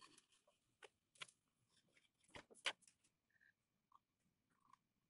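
Faint handling noises from threading a serger by hand: small scattered clicks and rustles as threads are pulled through the guides. There are a few sharper clicks, about a second in and twice around two and a half seconds in, against near silence.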